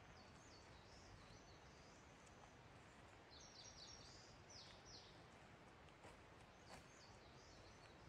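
Small songbirds singing faintly over quiet forest ambience: a short high phrase near the start, a quick run of high descending notes around the middle, and another short phrase near the end.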